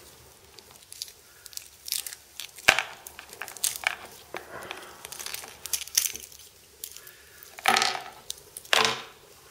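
Thin plastic protective wrapping being pulled off a new wristwatch, giving irregular crinkling and crackling with short peeling scrapes. There is one sharp click about a quarter of the way in.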